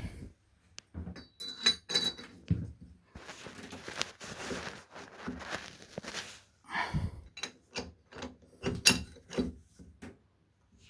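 Metal parts and tools being handled during work on a shower mixer valve: irregular clinks, taps and knocks, with a short stretch of rustling noise in the middle.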